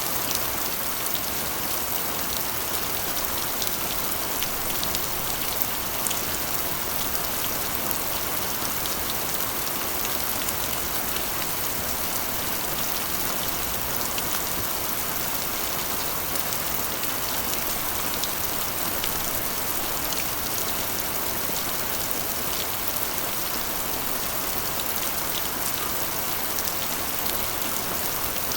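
Steady rain falling on a corrugated iron roof: a constant hiss with many individual drops ticking sharply on the metal sheeting.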